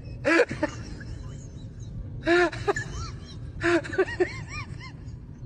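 A husky vocalizing excitedly in three short bursts, each a huff followed by quick rising-and-falling yips and whines, over background music.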